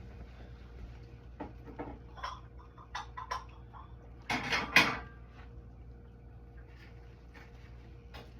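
Scattered light knocks and clicks of hard objects being handled, with a louder burst of clatter about four and a half seconds in.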